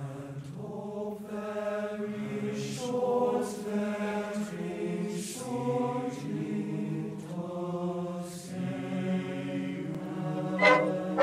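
Background music: voices sing slow, held choral notes, with brass coming in near the end.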